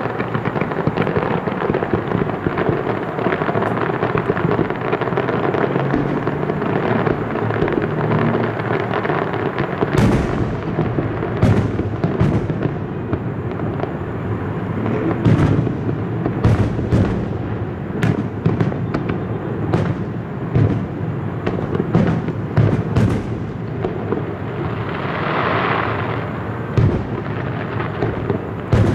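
Aerial fireworks shells bursting in a continuous barrage: a dense rumble of explosions, with sharp separate bangs every second or so from about ten seconds in, and a brief hissing swell near the end.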